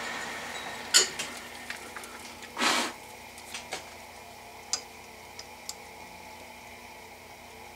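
A 12-inch Atlas lathe's spindle dying away as it coasts to a stop, then small metal clicks and taps as a telescoping gauge is handled and set into the freshly bored hole. The loudest click comes about a second in, and there is one short scraping rush near three seconds in.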